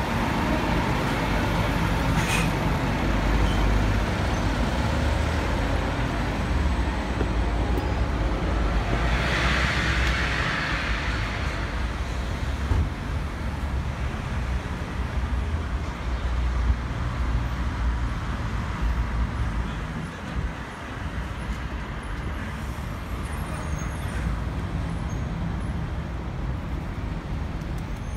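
Busy road traffic: a steady rumble of passing buses, lorries and cars, with a brief hiss about ten seconds in, easing slightly in the second half.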